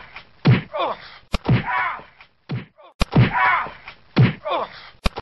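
Fight scene sounds: sharp hits, each followed by a falling cry of pain, repeating about every second and a half.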